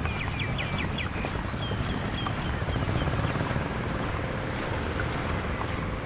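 Steady low rumble of wind and waves on the shore, with a bird chirping a quick run of notes in the first second and a short trill shortly after.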